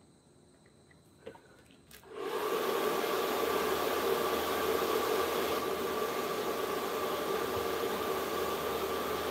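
A small electric motor with a rush of air, like a hair dryer or blower, switched on after a click about two seconds in and then running steadily with a steady hum.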